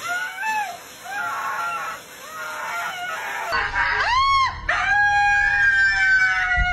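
Siberian husky vocalizing in a series of short rising-and-falling whining calls over the steady hiss of a pet blow dryer. Then another husky howls: one short rising-falling note, then a long howl that slowly sinks in pitch.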